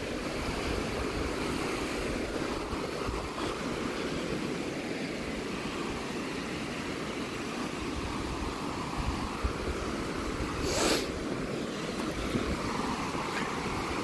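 Steady rush of flowing mountain-stream water, with a brief hiss about eleven seconds in.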